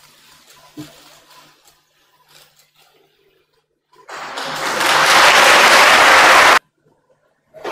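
A loud rushing noise starts about four seconds in, holds for about two and a half seconds and cuts off suddenly. Before it there is only a faint low hum.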